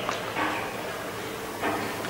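Steady background noise in a pause between a man's spoken phrases, with no distinct event.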